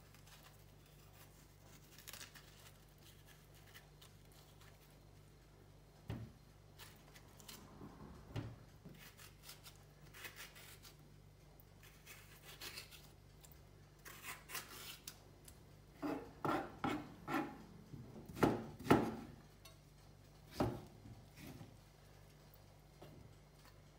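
Metal spoon scraping and scooping the seedy flesh out of halved courgettes on a plastic cutting board: irregular scrapes and soft knocks, with a run of louder knocks about two-thirds of the way through.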